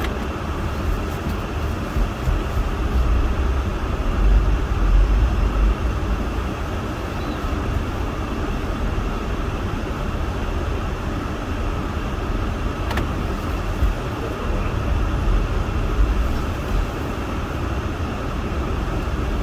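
Steady cabin noise inside a van in the snow: the running engine and the heater blower, with a low rumble that swells around four to six seconds in and again near the end.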